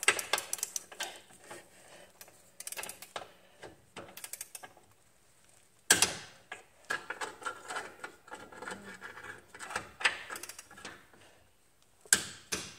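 Torque wrench ratcheting on the engine mount bolts, in several short runs of quick clicks, with one sharp, louder click about six seconds in.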